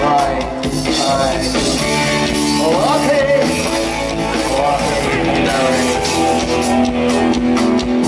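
Live band music with guitar, played loud through a concert sound system and recorded from the audience.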